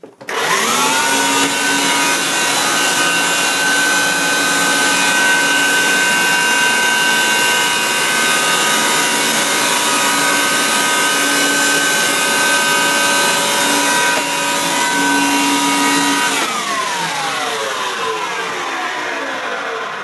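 Hoover SteamVac upright carpet cleaner switched on: its motor spins up within a second into a loud steady whine with rushing air, and a lower hum comes and goes. After about sixteen seconds it is switched off and winds down, its pitch falling.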